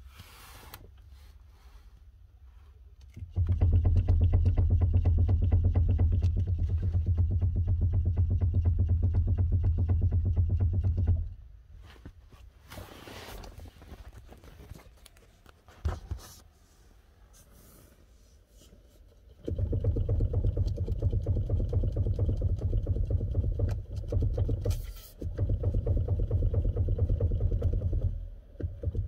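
Rapid knocking from the steering column of a 2013 Kia Sorento as the steering wheel is rocked quickly from side to side, in two stretches of about eight seconds each. The knock is the sign of play in the steering column.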